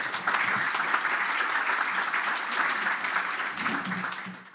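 Conference audience applauding: many people clapping together in a steady, dense patter that dies away near the end.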